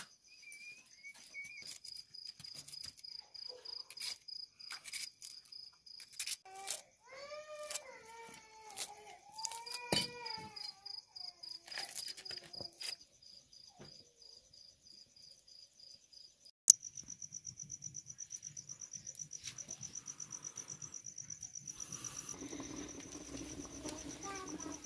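Crickets chirping in a steady high trill. Sharp clicks and knocks of handling come through it, and around the middle there are several short rising-and-falling calls. After a cut with a loud click, the trill returns as a faster, evenly pulsing chirp.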